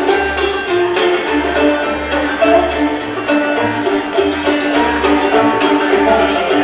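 Old-time string band playing a fiddle tune: bowed fiddle melody over plucked strings, with a steady pulsing bass line underneath.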